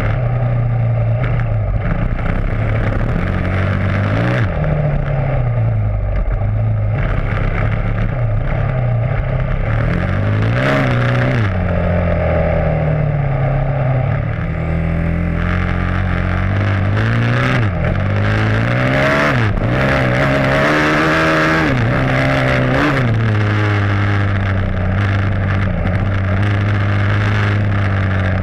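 Dirt bike engine heard close from the rear fender, running hard and revving up and dropping back several times as the throttle is worked and gears change.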